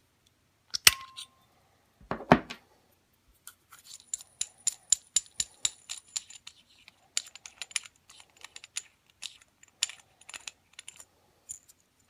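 Billet aluminum hood-pin latch parts clinking and clicking against each other as they are handled: a sharp metallic tap with a brief ring about a second in, a louder knock a second later, then a long run of irregular light metallic clicks with a high ring.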